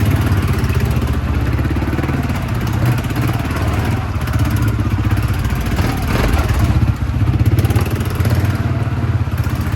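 ATV engine running steadily, with a fast, even firing pulse.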